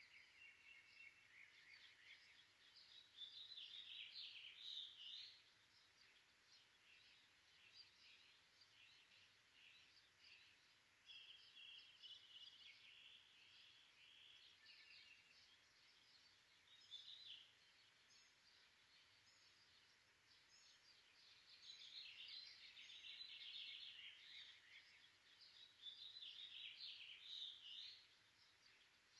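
Faint birdsong: chirps and trills in bursts every few seconds, from more than one bird.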